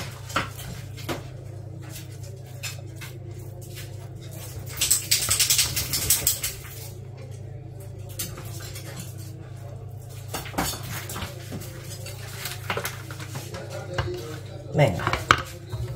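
Plates and cutlery clinking and knocking while cold cuts and bread are handled and arranged on plates. A louder burst of noise comes about five seconds in, over a steady low hum.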